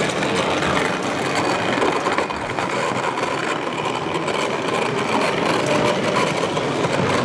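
Small radio-controlled 16mm-scale model railcar running along garden-railway track, its little motor and wheels on the rails giving a steady running noise over the hum of a large hall.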